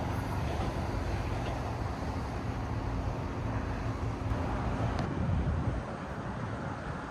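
Train running through the station with a steady low rumble, and a single sharp click about five seconds in.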